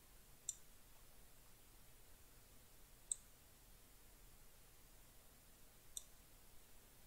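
Three sharp computer mouse clicks, a few seconds apart, over near-silent room tone.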